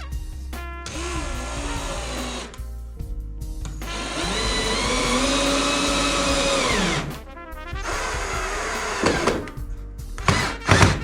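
Electric power tool motor running: a whine that speeds up, holds, then winds down, with shorter runs before it and a few knocks near the end, over background music.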